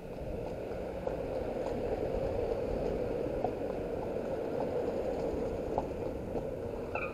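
A car driving slowly past a walking horse, its engine and tyre noise rising over the first two seconds and then holding steady, with a few faint hoof clicks on the tarmac.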